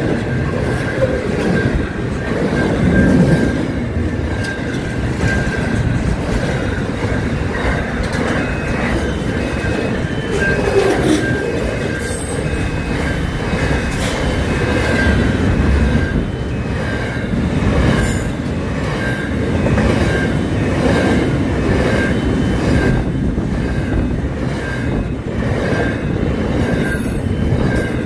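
Freight train's container wagons rolling past at speed, a continuous rumble and clatter of steel wheels on the rails, with a high steady tone running through it.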